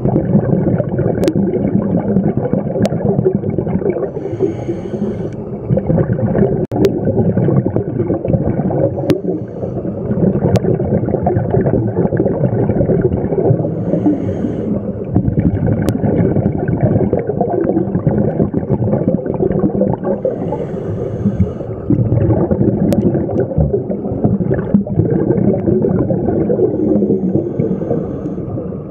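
Scuba diver breathing through a regulator, heard underwater: a steady rumble of exhaled bubbles, with a faint hiss of inhalation about every five to six seconds. A few sharp clicks are scattered through it.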